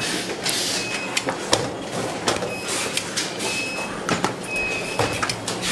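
Electronics assembly-line noise: a steady low hum under frequent sharp clicks and clacks, a few short hissing bursts, and several brief high-pitched beeps.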